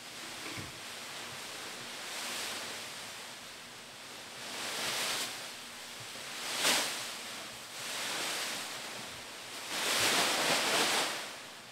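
Masses of plastic bags rustling and crinkling as they are gathered and moved, rising in about five surges. A sharp one comes just past the middle and the longest near the end.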